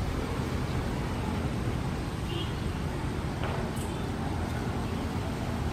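Steady low outdoor rumble with no clear pitch, with a single faint click about three and a half seconds in.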